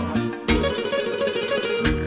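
Background music: a plucked-string melody over a pulsing bass line and steady beat.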